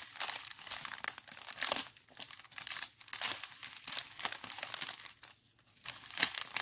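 Strips of small zip-lock plastic bags holding round diamond-painting drills crinkling as they are handled, in irregular crackles with a brief lull about five seconds in.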